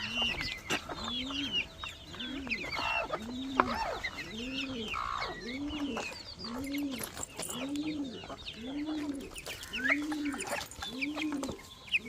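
A pigeon cooing over and over in short, low, rising-and-falling coos, about one every 0.8 s. Chickens cluck and high chirps scatter over it.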